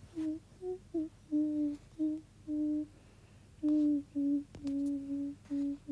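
A person humming a simple tune in short separate notes, mostly on one or two nearby pitches, with a break of under a second midway.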